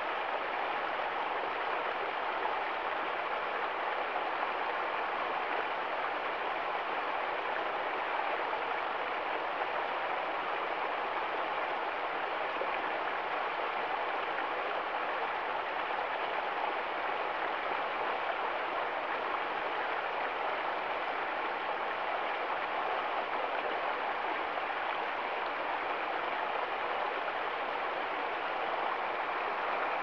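Shallow stream running over rocks among ice and snow: a steady, even rush of flowing water.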